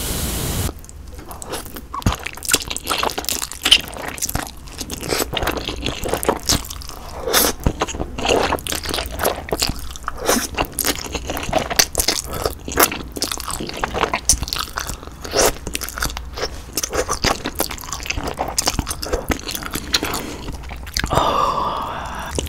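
Close-miked chewing of ramen noodles from budae-jjigae (Korean army stew): a string of small, irregular wet mouth clicks and smacks.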